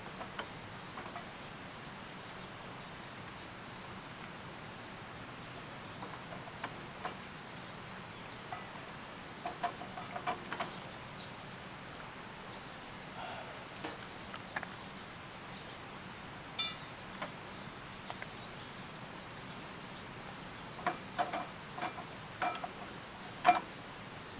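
Insects trilling steadily at a high pitch, with scattered small clicks and knocks, bunched about ten seconds in and again near the end.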